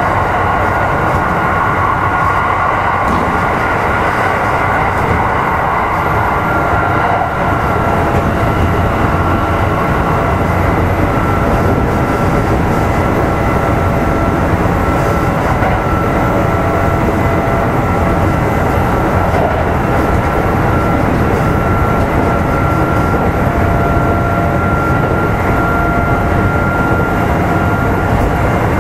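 Kintetsu 1810 series electric train (motor car Mo 1826) running between stations, heard on board: a steady rumble of wheels on rail with a high whine from the motors and gearing. The whine dips slightly in pitch a few seconds in, then holds level.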